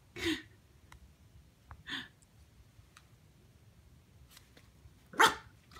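Puppy barking in three short barks, the last one near the end the loudest.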